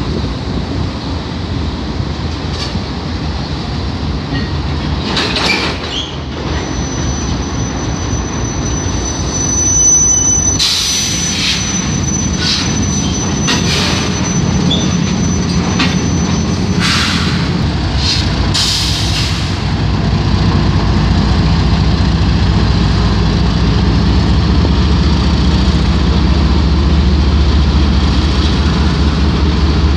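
Freight train passing close by: steel wheels rumbling over the rails, with a thin high wheel squeal and sharp metallic screeches and clanks in the first half. In the second half a heavier low drone takes over as the diesel locomotives in the middle of the train go by.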